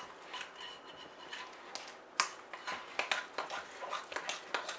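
A spoon stirring thick beer bread batter in a glass mixing bowl: irregular clinks and scrapes against the glass, with a sharp clink about two seconds in and quicker strokes after.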